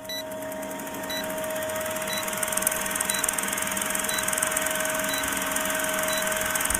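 Old film projector countdown sound effect: a steady mechanical whir with a fast fine clatter and a steady hum, and a short high blip once a second as the countdown numbers tick down.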